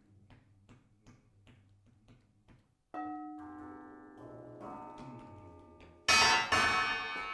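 Steel car suspension coil springs played as percussion: soft taps about three a second, then struck with a wooden stick so that they ring with several steady metallic tones that slowly fade. Loud, bright ringing strikes come in about six seconds in.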